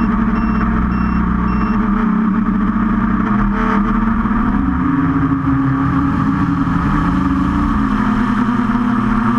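QAV500 quadcopter's electric motors and propellers whining steadily, the pitch rising and falling as the throttle changes, most plainly in the second half. A high beep repeats about twice a second for the first couple of seconds.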